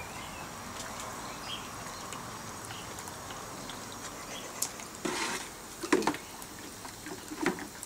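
A toy ball splashing and knocking in a bucket of water, three times in the second half, over a faint steady hiss.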